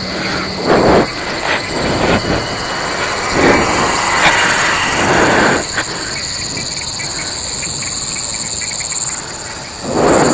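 Steady high-pitched chorus of night insects, with loud rustling of grass and brush in bursts about a second in, for a couple of seconds in the middle, and again near the end.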